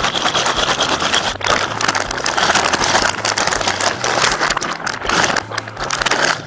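Plastic snack bag crinkling loudly as hands squeeze and turn it over: a dense, continuous crackling rustle.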